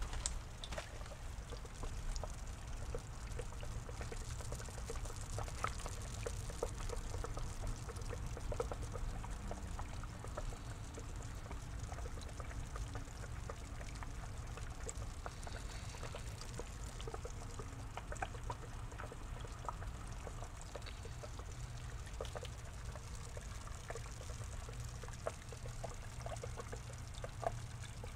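Water pouring and trickling steadily into a small pond, with many small drips and plops, over a low steady hum.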